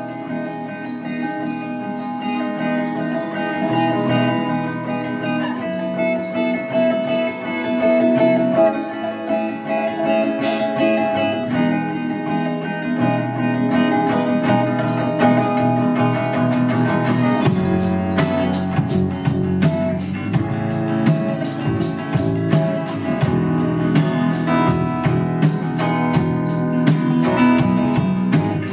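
Live band playing a slow instrumental passage: guitars over bass, with the drums coming in about seventeen seconds in on a steady cymbal beat.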